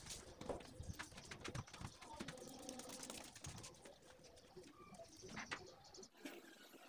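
Faint cooing of a dove-like bird, with light clicks and taps of slippered footsteps on a tiled floor.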